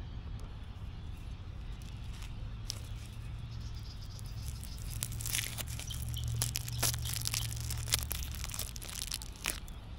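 Rustling and crinkling as a piece is cut off a stick of pepperoni with a pocket knife: irregular small crackles and clicks that grow busier about halfway through, over a steady low rumble.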